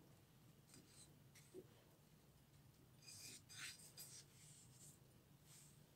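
Faint gritty rustling and scratching as a stuffed pomfret is pressed and rubbed in a dry coating of rice flour and semolina, a few scratchy rubs coming about three to four seconds in; otherwise near silence.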